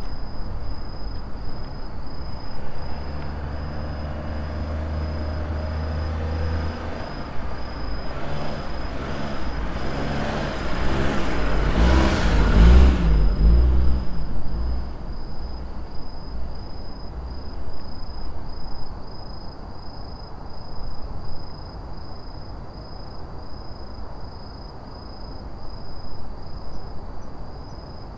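A motor vehicle passes close by on the road, its engine hum building and its noise peaking about twelve seconds in, then fading away. Under it, crickets chirp in a steady fast pulse.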